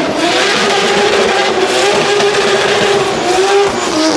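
Drift car's engine held at high revs while the car slides sideways, with a broad hiss of spinning, smoking tyres under the steady, slightly wavering engine note, which dips briefly near the end.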